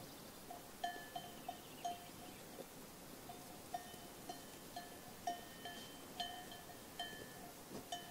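Bells on a grazing flock of sheep clanking irregularly, a few short ringing strikes a second that die away quickly, over a low, steady outdoor hiss.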